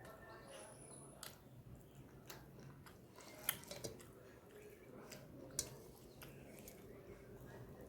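Faint chewing and mouth sounds of a person eating, with scattered soft clicks and two sharper ones about three and a half and five and a half seconds in.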